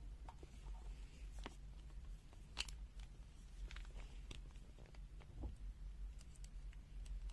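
Faint scattered clicks and taps from handling a multimeter's test probes and a large capacitor, over a steady low hum.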